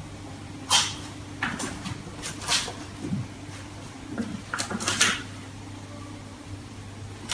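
A kitten's paws batting at a framed mirror: a scatter of short taps and rattles, several in quick succession, over a steady low hum.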